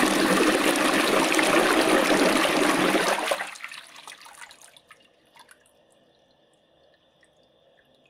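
Toilet flushing: a loud rush of water that drops off sharply about three and a half seconds in, then a few faint trickles and drips as it dies away.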